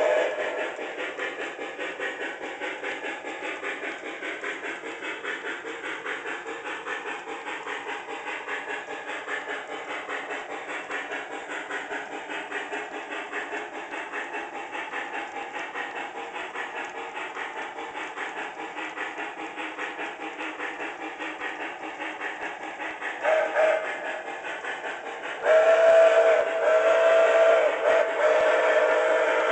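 HO-scale MTH Pere Marquette 1225 2-8-4 Berkshire steam locomotive's onboard sound system playing even, rapid steam chuffing. About 23 seconds in it gives a short whistle toot, then a louder, longer chime-whistle blast near the end.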